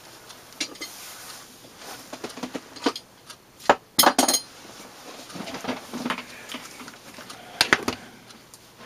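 Hand tools and gear being set down on a cluttered workbench: scattered light clinks and knocks, with the loudest clatters about four seconds in and again just before eight seconds.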